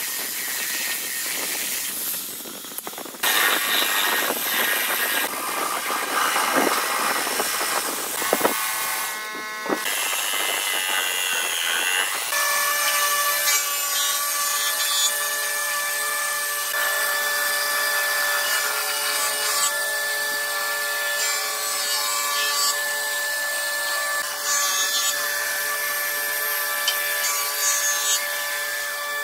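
Electric jigsaw cutting a curved line through a wooden board: the rasp of the reciprocating blade over a steady motor whine. The sound changes abruptly a few times in the first half, then runs evenly.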